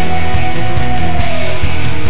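Loud rock music soundtrack with a steady drum beat and bass; a held note slides down near the end.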